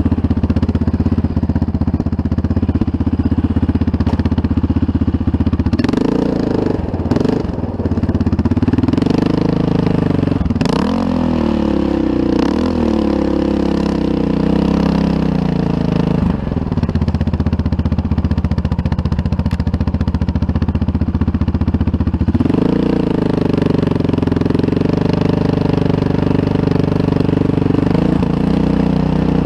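ATV engine running while riding, its pitch climbing as the throttle opens about six seconds in, wavering, easing back after about sixteen seconds, then climbing again after about twenty-two seconds. A few knocks are heard near the first rise.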